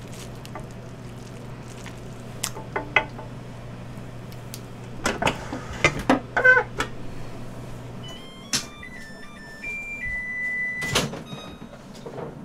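Dishes and chopsticks clinking and knocking. About eight seconds in a steady low hum cuts off. Then a microwave oven sounds a run of electronic beeps at different pitches, ending in a longer beep, with a couple of door thunks.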